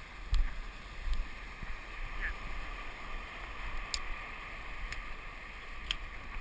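Wind buffeting the microphone over a steady wash of ocean water on a rocky shore. There are low thumps about half a second and a second in, and a few faint clicks later on.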